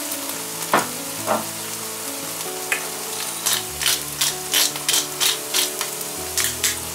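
Mushrooms sizzling as they fry in a nonstick pan, with two short strokes about a second in and a run of about ten quick crunchy strokes in the second half as black pepper is ground over them.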